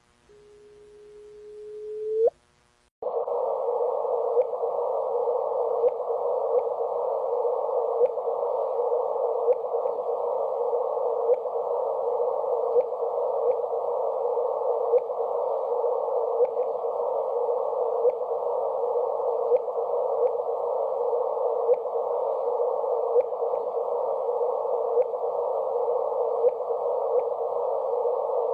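Audio rendering of the gravitational-wave signal from two merging black holes: a steady tone that sweeps sharply up in pitch and cuts off about two seconds in. From about three seconds in, it gives way to a steady band of hissing hum with faint regular ticks.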